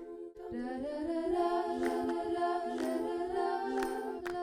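Background music: a wordless, hummed vocal melody of held notes, with a few light clicks.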